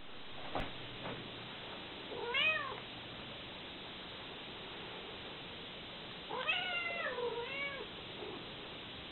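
Kitten meowing: one rising-and-falling meow about two seconds in, then two more close together about six seconds in.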